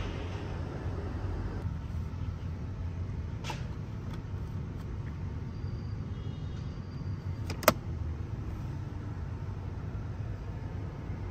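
Steady low rumble with a few light clicks, and one sharp, loud click about three-quarters of the way through.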